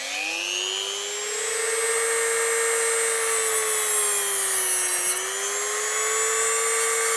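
Handheld rotary tool with a small cut-off disc spinning at high speed, a steady high whine, cutting through a 1 mm metal rod. The pitch climbs as it comes up to speed in the first second and sags a little under load about five seconds in before recovering.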